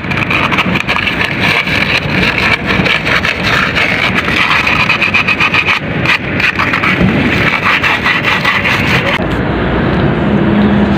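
Rapid, continuous scraping on a corroded car battery terminal as it is cleaned.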